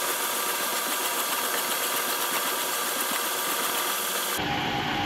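Metal lathe running, spinning a 1/4-inch rod in its chuck, with a steady, even hiss.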